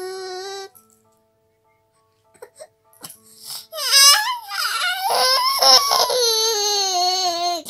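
A 6–7-month-old baby crying: a short, steady wail at the very start, then after a near-silent pause a longer, louder wailing cry from about halfway in, its pitch wavering and sliding down.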